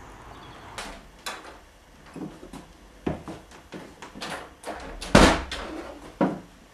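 A series of irregular knocks and clunks, roughly one a second, the loudest a heavy thump about five seconds in.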